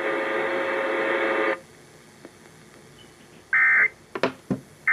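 Emergency Alert System end-of-message data bursts: two short, harsh digital tone bursts about a second and a half apart, marking the close of the flash flood warning. They follow a steady buzz that cuts off about a second and a half in, with a few clicks between the bursts.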